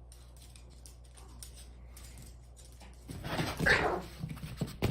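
A dog vocalizing in a loud, rough burst lasting about a second, starting some three seconds in, with another short sound near the end, over a low steady hum.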